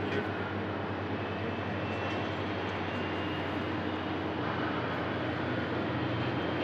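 Airbus A320-200 airliner's jet engines running at approach power as it flares just above the runway to land: a steady rushing roar with a faint high whine.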